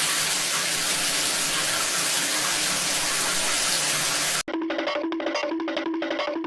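Steady rushing noise of running water for about four and a half seconds, cutting off abruptly. After it, bouncy music with a wood-block beat comes back.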